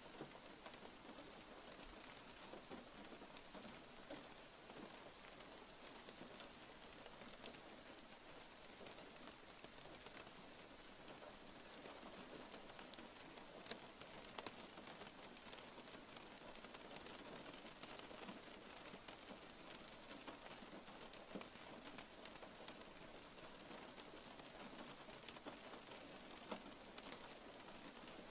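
Faint, steady rain, an even hiss flecked with scattered drop ticks.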